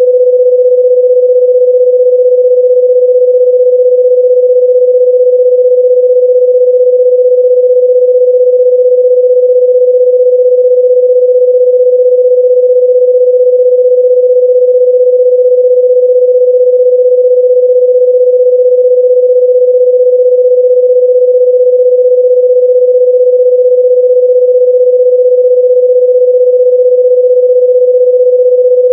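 A single pure electronic sine tone, steady and unchanging, mid-pitched and loud, used as an annoying noise.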